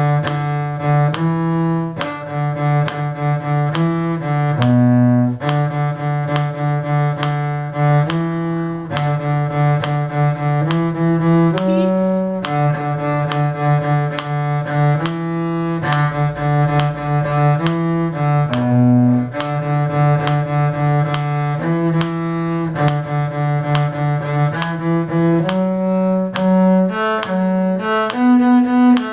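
Cello playing the harmony line of a slow tune: sustained bowed notes that step from one pitch to the next about once a second, in a low register.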